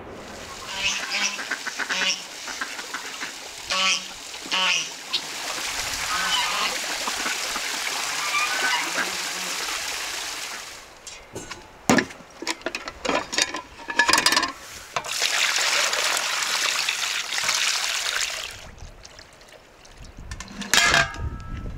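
Domestic waterfowl honking and quacking in a run of short calls in the first few seconds, with another call near the end. Two long stretches of steady rushing noise and a cluster of sharp knocks and clatters in the middle.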